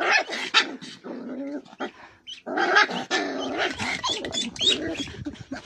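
A dog vocalizing in pitched, grumbling growls, in two bouts: a short one at the start and a longer one after a pause of about a second and a half.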